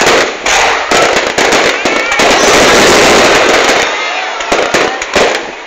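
Fireworks going off in quick, loud bangs. From about two to four seconds in they merge into a dense, continuous crackle, with voices in the crowd heard between the bangs.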